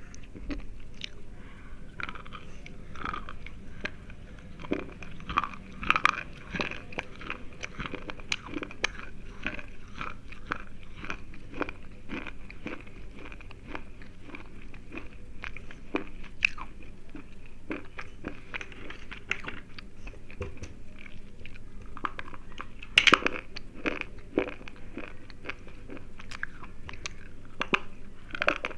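Slate pencils being bitten and chewed close to the microphone: a dense, continuous run of crisp crunches and snaps, with a few louder bites standing out.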